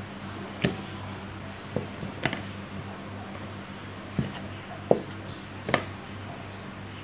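About six light taps and knocks, spread unevenly, from dough pieces, a plastic dough scraper and a plastic digital kitchen scale being handled on a silicone baking mat, the sharpest a little under five seconds in. A low steady hum runs underneath.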